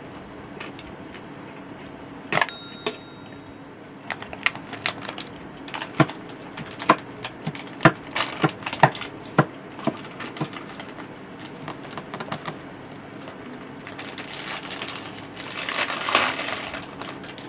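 Snack packaging being handled: a run of sharp plastic clicks and taps, then crunching as a chocolate-chip cookie is bitten and chewed near the end.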